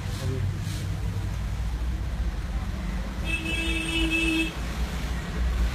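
Steady low traffic rumble, with a vehicle horn sounding once for about a second a little past the middle.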